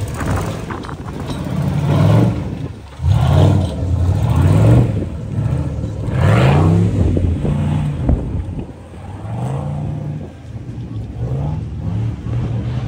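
Off-road buggy's engine revving in repeated bursts as it crawls over logs, its pitch climbing and falling about five times with each stab of the throttle.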